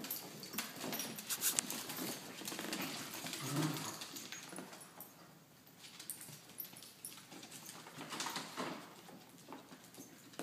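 Dachshund puppies and adult dachshunds scampering on a hardwood floor: claws clicking and pattering in quick, irregular taps, busiest in the first few seconds.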